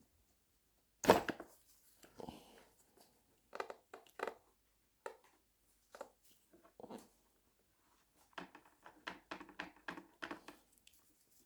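Plastic wiring connectors and loom on a Yamaha YBR 125's indicator wiring being handled and tugged at by hand: a sharp knock about a second in, then scattered clicks and rustles, with a quick run of small clicks near the end.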